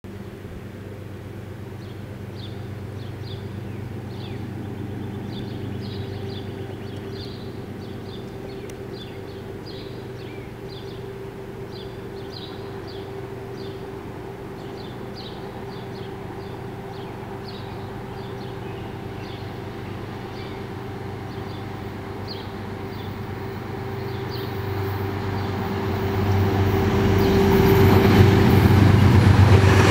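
An Amtrak train led by a GE Genesis P32AC-DM locomotive approaching: a steady low hum that grows steadily louder over the last few seconds as the train nears. Short high chirps come and go over the quieter first part.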